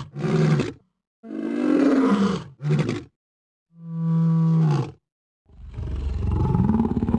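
A lion roaring several times in a row, a string of roars and grunts with short gaps between them, the last and longest starting about five and a half seconds in. This is the roar of an MGM-style studio logo ident.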